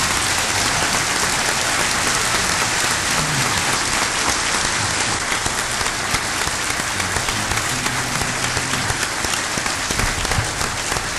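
A large audience applauding steadily without a break, many hands clapping together.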